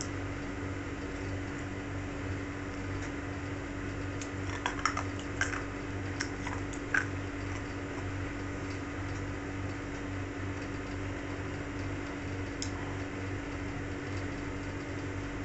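A steady low mechanical hum, with a short run of light clicks and taps about four to seven seconds in and one more near the end, as a ceramic coffee mug is handled and lifted for sips.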